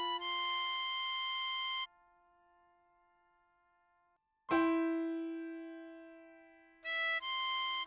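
Tutorial backing of harmonica melody over piano chords. A held harmonica note stops about two seconds in and the piano chord fades to near silence. A new piano chord is struck about halfway through and rings out, and the harmonica melody resumes near the end.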